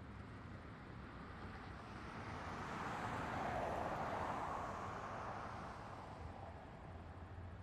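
Road traffic ambience: a steady low traffic rumble, with one vehicle's tyre and engine noise swelling as it passes, loudest about halfway through, then fading away.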